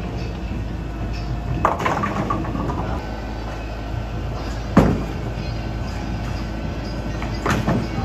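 Bowling balls rolling down the lanes with a steady low rumble, with a rattling crash of pins about two seconds in and sharp knocks near five and seven and a half seconds.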